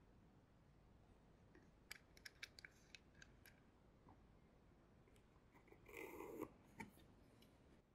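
Near silence, with a few faint small clicks and a brief soft rub of a sliding bevel and wooden block being handled on a workbench.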